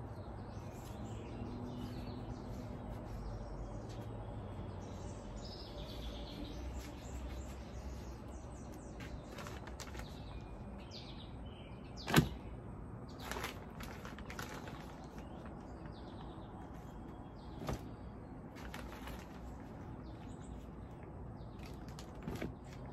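Outdoor ambience with faint bird chirps under hands working in a plastic planter: gloved rustling and scraping, with a sharp knock on the plastic about twelve seconds in and a few lighter knocks after it.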